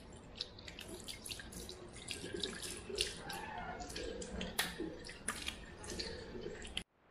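Water running from a tap into a washbasin while someone washes their face, with frequent splashes as handfuls of water hit the face and the basin. The sound cuts off abruptly near the end.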